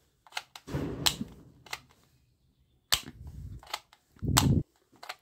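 Plastic toy pistol being worked by hand: about eight sharp clicks and snaps at uneven gaps, a couple with a short dull knock, the loudest near the end.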